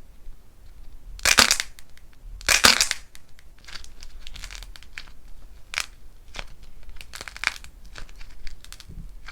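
Dried cracking clay being crushed by hand: two loud crunches near the start, then a run of smaller crackles as the pieces break up.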